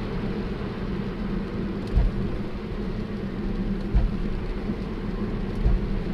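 Tesla Model 3 cabin noise while driving: a steady low road rumble with three dull thunks from the rear, about two seconds apart. The thunks come on letting off regen and then accelerating hard, and the owner takes them for a worn rubber mount on the rear drive unit letting the motor rock.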